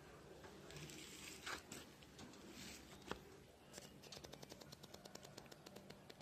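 Near silence with a few soft clicks, then from about halfway a faint, rapid, even ticking at roughly ten ticks a second.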